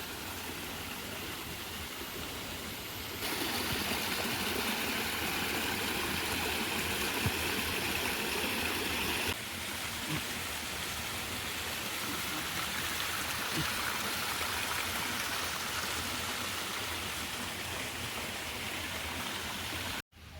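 Steady rush of running water, like a stream or waterfall. The level steps up about three seconds in, drops a little about nine seconds in, and cuts out for a moment near the end.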